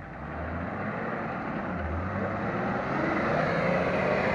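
A car engine running under hard load, its revs rising about three seconds in, over a steady rush of noise.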